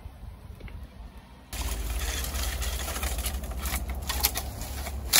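Steady low rumble of wind on the microphone, with a few small cracks as a dry branch is handled and a loud, sharp snap of dry wood breaking right at the end.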